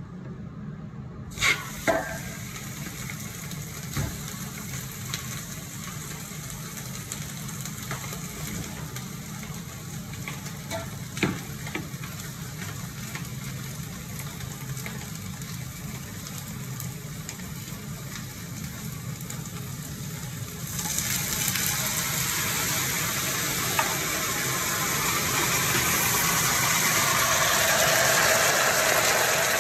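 Meat sizzling in a large hot stainless-steel pot, with a few knocks as pieces go in. The sizzle swells much louder in the last third. A steady low hum runs underneath.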